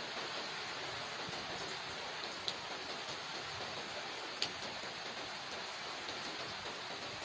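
Steady rain falling on wet paving, puddles and tree leaves, an even hiss, with two sharp drip ticks about two and a half and four and a half seconds in.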